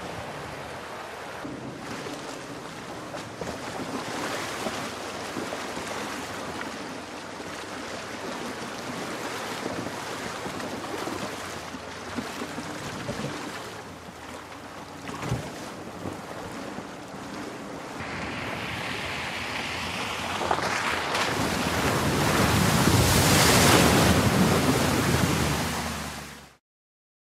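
Steady rushing noise of water and wind, swelling into a loud wash of spray as a Land Rover Defender drives through a flooded ford, then cutting off suddenly near the end.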